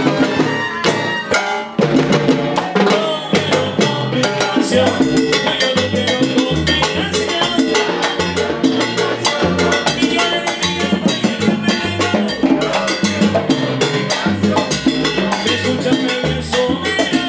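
Live salsa band playing at full volume: hand percussion and a walking bass line under a steady beat, with a trombone in the band.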